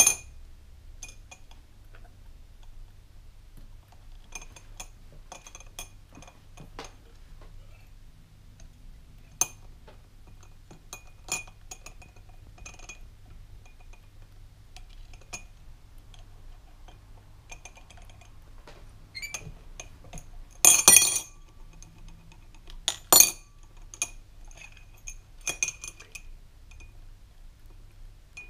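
A metal spoon clinking and scraping against a drinking glass as a rainbow lorikeet works it with its foot and beak: light, irregular clinks, with a louder clatter about twenty seconds in and another sharp clink shortly after.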